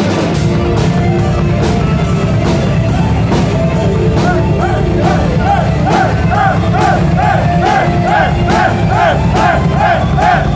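Power metal band playing live and loud: drum kit keeping a steady beat under full guitars. From about four seconds in, a short high melodic line repeats about twice a second.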